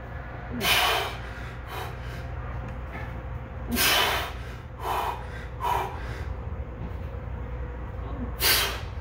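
A man's forceful breaths blown out through pursed lips, straining through heavy barbell bench-press reps: a handful of sharp puffs, the strongest about a second in, about four seconds in and near the end.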